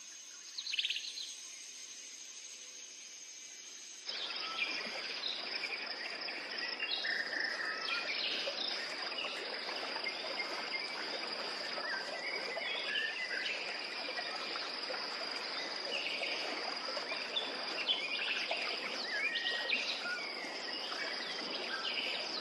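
Natural ambience: a steady high insect drone with many short bird chirps and calls scattered through it. It starts faint, with a single chirp, and about four seconds in a fuller, louder bed of insects and birds comes in suddenly.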